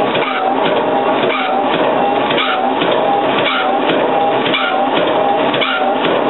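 ND long-stroke metal shaper running, its ram driving back and forth about once a second. Each stroke brings a rising and falling mechanical whine and clatter.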